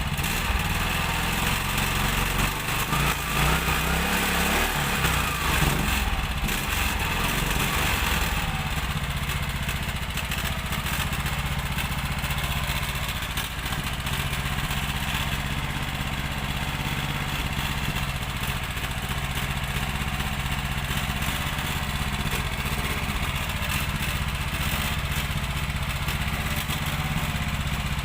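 Honda G100 small single-cylinder engine running. Its speed shifts up and down over the first several seconds, then it runs steadily.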